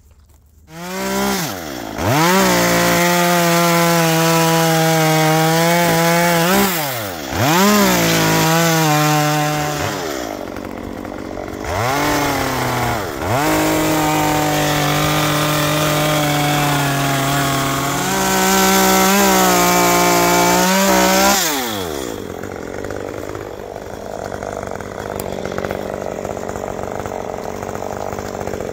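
STIHL chainsaw cutting into a cedar stump. It winds up from silence about a second in and runs at full speed, easing off and speeding up again twice. It then winds down and stops a few seconds before the end, leaving quieter rustling.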